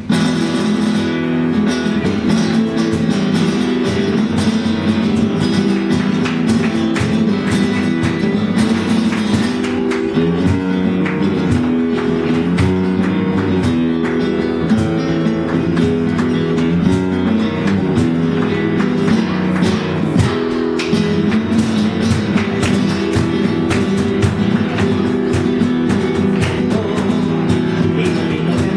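Two flamenco guitars playing together. They come in suddenly at the start, with busy strummed chords and picked notes.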